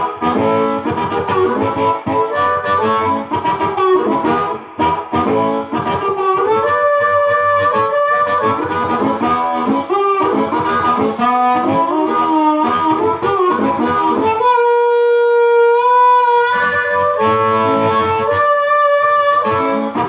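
Blues harmonica (a Hohner Blues Harp in A) played into a vintage Panasonic CE-102 microphone and amplified through a 50-watt tube amp. It plays a run of notes and chords, with one note held for about two seconds past the middle.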